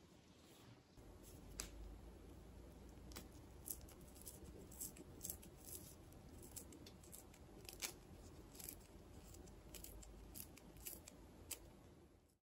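A mandarin being peeled by hand: faint tearing of the peel with small, sharp, irregular clicks.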